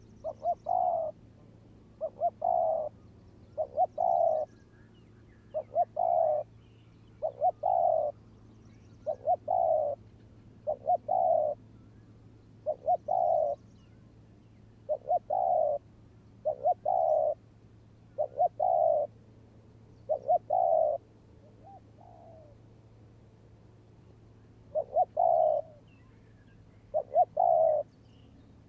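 Spotted doves cooing: short phrases of a couple of quick coos ending in a longer one, repeated about every one and a half to two seconds, with a brief pause about two-thirds of the way through.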